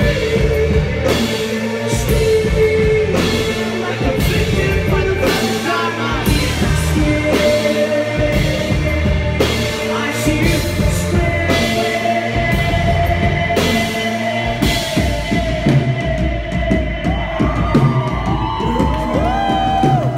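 Live rock band playing loud through the venue's PA, with a singer's vocal over a heavy beat about once a second. Near the end the beat drops out, leaving long held vocal lines that slide up and down in pitch.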